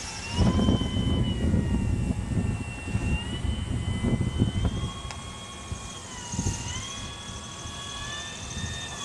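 Electric motor and propeller of a radio-controlled gyrocopter whining in flight, the pitch stepping up and down several times as the throttle changes. An irregular low rumble runs underneath, heaviest in the first half.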